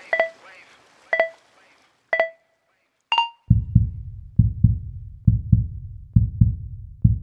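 Workout interval timer counting down: three short beeps a second apart, then a fourth, higher beep marking the end of the exercise interval. Then a low, steady drum beat of background music starts, about two to three thumps a second.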